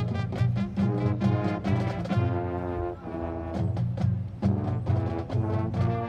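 High school marching band playing: brass chords with strong low brass over drums and front-ensemble percussion. About two seconds in it eases to a softer held chord, then the full band comes back in.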